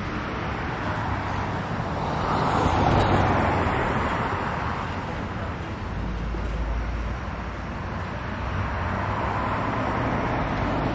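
Road traffic: a passing vehicle's noise swells and fades, loudest about two to four seconds in, with another building near the end.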